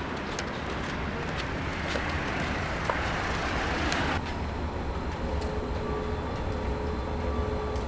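Steady rumble of street traffic that swells, as from a passing vehicle, and cuts off abruptly about four seconds in; faint steady tones come in after.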